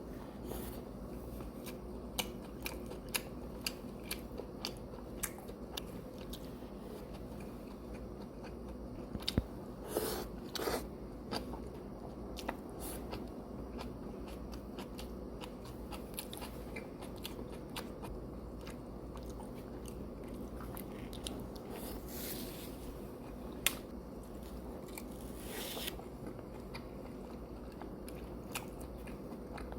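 A person eating: chewing and biting, with many short sharp clicks and taps and a few brief louder rustles over a steady low room hum.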